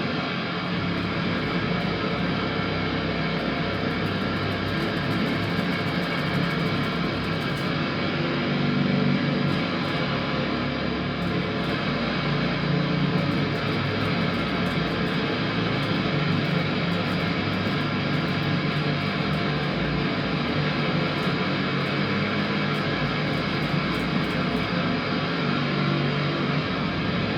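Ambient electric guitar music: dense, sustained layered tones, steady in level throughout.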